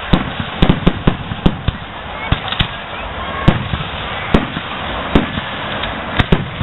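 Aerial firework shells bursting overhead, a dozen or so sharp bangs in quick, irregular succession, the loudest about three and a half seconds in.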